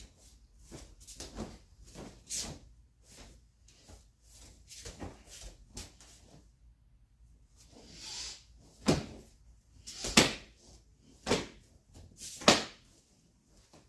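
Martial artist performing a kenpo kata barefoot on mats: fast strikes, hand slaps, gi snaps and steps make a string of short, sharp slaps and snaps, with a pause midway. Near the end come four louder cracks about a second apart.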